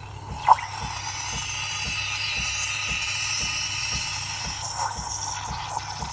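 Breville 870XL espresso machine's steam wand opening with a sharp burst about half a second in, then hissing steadily while steaming milk for a latte. A low ticking about three times a second runs underneath.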